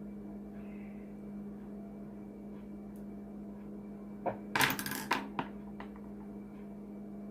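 A brief cluster of small, sharp metallic clinks and rattles about four and a half seconds in, over a steady low hum.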